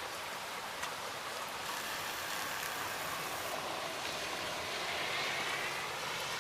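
Pouring rain, a steady hiss that swells slightly about five seconds in.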